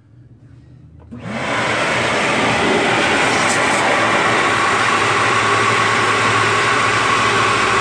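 An air blower starts about a second in and runs steadily, forcing air into a GY6 scooter's transmission to push the last of the old gear oil out through the drain hole.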